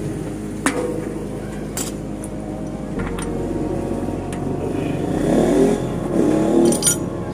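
A few sharp, separate metallic clicks as bicycle hub parts and tools are handled, over a steady low hum.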